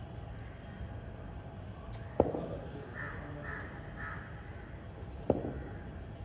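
Two sharp cracks of a hard cricket ball being struck, about three seconds apart, each ringing briefly in the covered nets. Between them a bird calls three times in quick succession.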